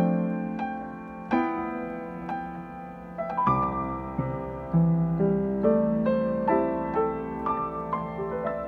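Yamaha grand piano played by hand: a slow piece of chords and single notes struck every half second to a second or so, each left to ring and fade.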